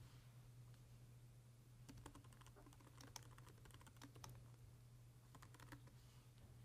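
Faint computer keyboard typing: a run of quick keystrokes starting about two seconds in, then a few more keystrokes near the end, over a low steady hum.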